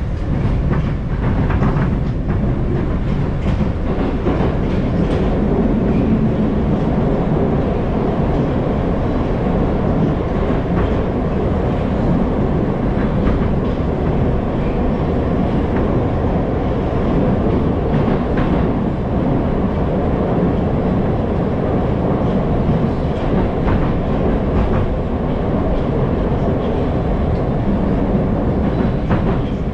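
Moskva-2020 metro train running at speed through a tunnel, heard from inside the carriage: a steady loud rumble with scattered clicks from the wheels over the track.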